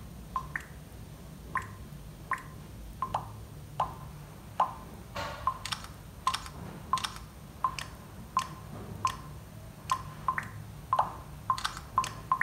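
Xiaomi Redmi Note 13 playing short camera shutter-sound previews through its speaker as each sound style is tapped: about twenty brief clicks and blips one after another, some in quick pairs, with a slightly longer rattling one about five seconds in.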